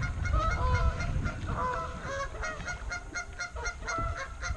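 Geese honking, a run of short repeated calls, over a low rumble that is strongest in the first two seconds.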